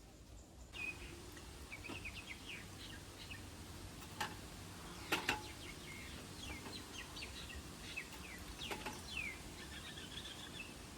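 Small birds chirping, many short quick falling chirps, with a few sharp clicks; the loudest is a close pair of clicks about five seconds in.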